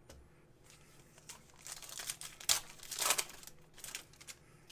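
Trading cards and their wrapper or sleeve packaging being handled: a run of crinkling rustles and light clicks, loudest about halfway through.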